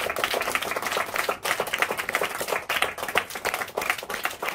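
A group of children applauding, many hands clapping unevenly at once.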